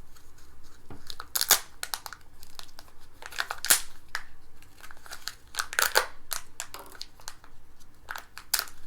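Foil wrapper of a Kinder Joy egg being torn open and crumpled, an irregular crinkling with a few louder crackles.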